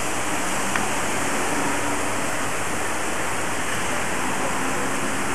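Steady, loud hiss of steam from the standing steam locomotive 03 1010: an even rushing noise with no rhythm.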